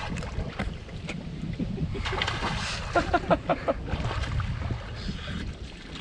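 Wind buffeting the microphone over lake water splashing, with a few short vocal sounds about three seconds in.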